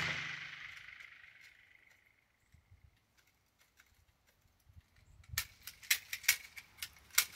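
The echo of a .45 ACP pistol shot dies away over the first second or so. After a pause come about a dozen sharp metallic clicks and clacks, bunched over about two seconds: the mud-fouled HK USP 45 Compact's action being worked by hand.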